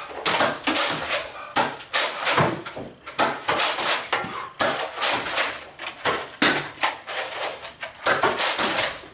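Busy, irregular knocking and clattering indoors, several sharp knocks a second with no break.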